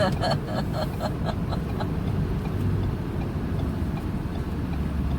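Steady road and engine noise inside a moving car's cabin, with a quick run of faint short pulses, about six a second, fading out in the first two seconds.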